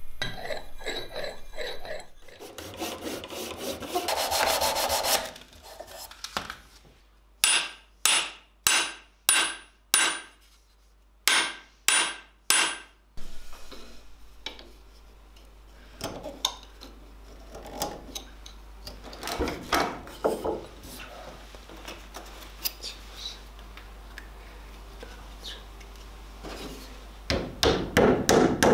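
Hand tool-work on a hatchet: the steel axe head rasps on a wet sharpening stone, followed by a run of about ten short, evenly spaced scraping strokes. Then come quieter, scattered scrapes of a carving knife shaving the wooden handle. Near the end, a mallet taps the head onto the handle in quick blows.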